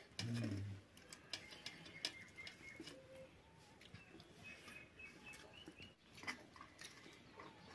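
Birds calling faintly in the background with short chirps, and a few light clicks of fingers and food against steel plates.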